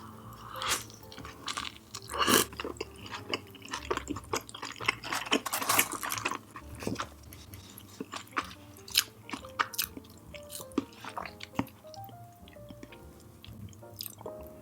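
Close-miked chewing and wet mouth sounds of someone eating, irregular smacks and clicks throughout, over soft background music.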